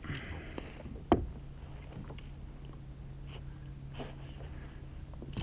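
Faint handling noises of a fly rod and line being worked from a kayak: one sharp knock about a second in and a few lighter clicks, over a low steady hum.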